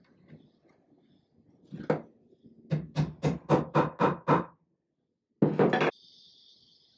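A small hammer tapping wooden dowels down into holes in a wooden chair rail: one knock, then a quick run of seven knocks at about four a second. A brief loud noise about five and a half seconds in.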